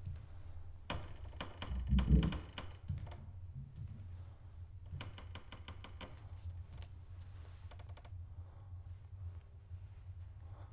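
Two clusters of quick sharp clicks and taps, with a dull thump about two seconds in, over a low steady hum.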